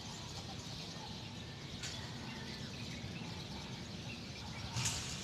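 Outdoor street ambience: a steady background hum with faint bird chirps, and a short burst of hiss about two seconds in and a louder one near the end.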